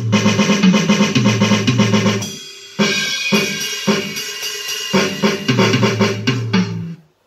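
Electronic drum pad played with drumsticks, heard through a BRIAN 10-inch, 25-watt combo amplifier: a fast drum-kit pattern with low, held notes underneath. The playing thins out about two and a half seconds in, picks up again, and stops shortly before the end.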